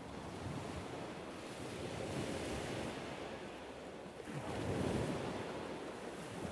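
A rushing noise that swells twice, about two seconds in and again near five seconds in.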